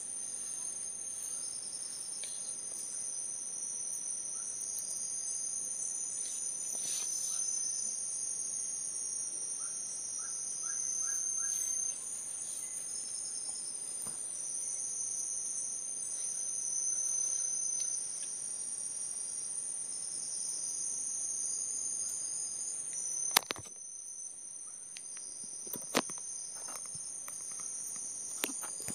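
Forest insects droning: a steady high-pitched buzz, with a second pulsing drone that comes and goes. Three sharp knocks near the end are the loudest sounds.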